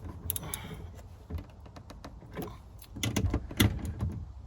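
Scattered clicks and knocks of hands and tools working on a car door's interior trim panel, with a quick cluster of sharper knocks about three seconds in.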